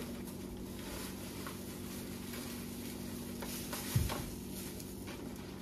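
Cloth travel bag being handled, with faint rustles and light knocks and one low thump about four seconds in, over a steady low hum.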